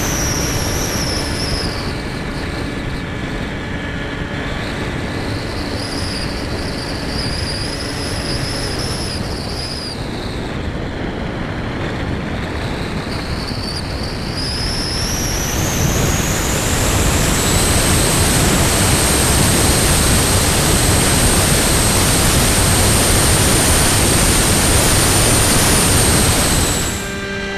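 Onboard sound of an EPP foam FPV plane in flight: the electric motor and propeller whine over wind rush. The whine sinks and dips in pitch in the first half, then climbs to a high, steady pitch and gets louder as the motor speeds up, and cuts off abruptly near the end.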